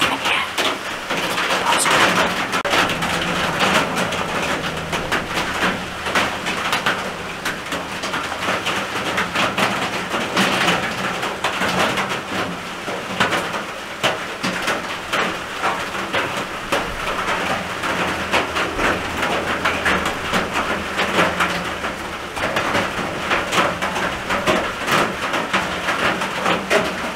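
Steady rain on the roof of a small wooden shack, heard from inside as a dense, even patter of drops.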